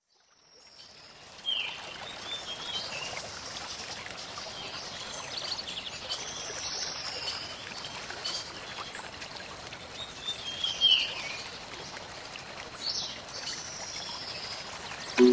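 Nature ambience: birds chirping in short falling calls over a steady rush of running water, fading in at the start.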